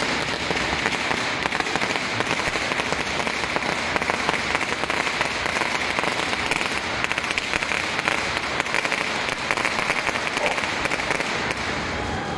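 Firecrackers going off in a crowd: a dense, continuous crackle of countless small pops blending together, thinning a little near the end.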